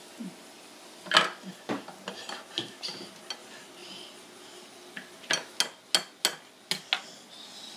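A plastic spatula knocking against a small frying pan and the wooden tabletop: a few scattered knocks, then a quick run of about seven sharp knocks about five seconds in.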